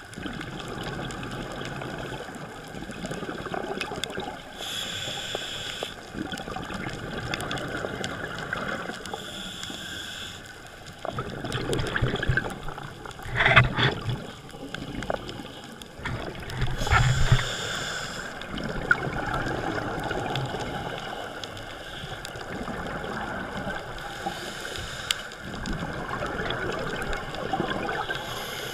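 Muffled underwater sound of scuba diving, picked up by an action camera in its waterproof housing: the diver's regulator breathing, with a bubbly hiss recurring every few seconds over a steady rush of water. Two louder bursts of bubbling come about halfway through.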